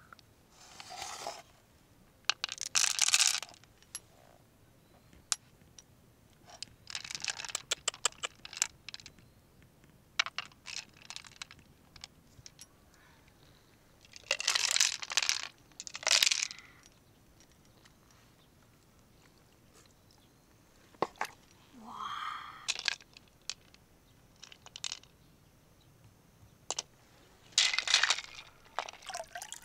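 A freshwater pearl mussel and its pearls being handled: bursts of crunching and scraping a few seconds apart, with sharp clicks between them.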